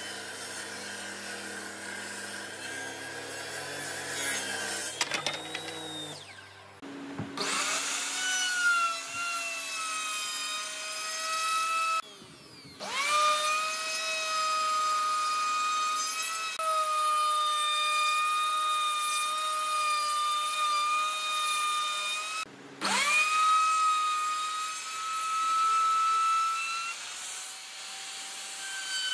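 Dong Cheng plunge router running with a steady high whine as it cuts a profile along the edge of a pine board. Three times the whine breaks off and returns with a rising pitch as the motor spins back up. Before the router, for the first few seconds, a lower steady hum of a table saw.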